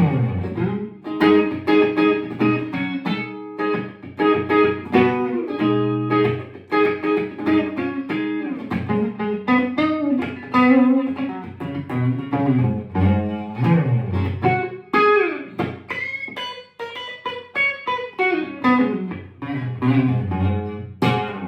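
Electric guitar, a customized Stratocaster, being played: a continuous phrase of picked single notes and double-stops, with string bends near the middle and toward the end.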